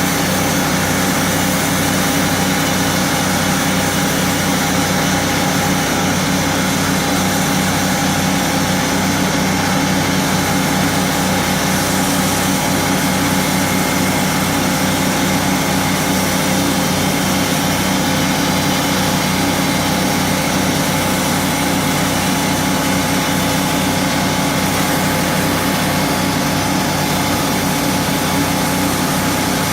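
Portable sawmill's engine running steadily at a constant pitch while the saw cuts through a log.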